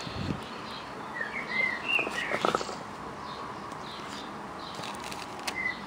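A few short, high chirping calls from an animal, between about one and two and a half seconds in, over a faint steady background, with a couple of light knocks around halfway.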